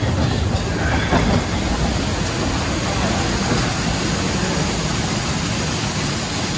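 Steady splashing rush of an artificial waterfall pouring down right beside an open mine-train ride car, with the Calico Mine Train running along its track underneath.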